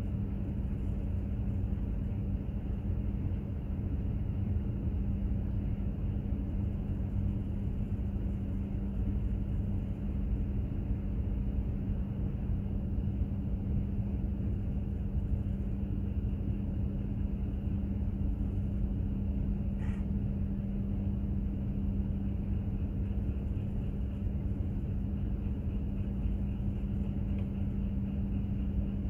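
Container ship under way: its engines and machinery give a steady low rumble with a constant hum.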